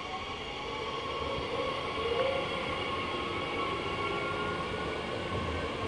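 DB class 442 (Bombardier Talent 2) electric multiple unit pulling away from a station platform. Its drive gives off a whine of several tones that slowly rise in pitch as it picks up speed, over a steady running rumble.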